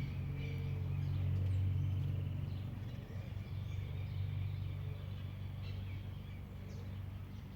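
Small birds chirping and calling faintly and intermittently in the countryside, over a louder low mechanical hum that eases off after about three seconds.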